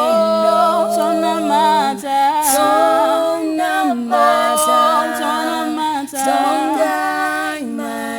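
A cappella vocal group singing held chords in close harmony, with no instruments. The chord shifts every second or two.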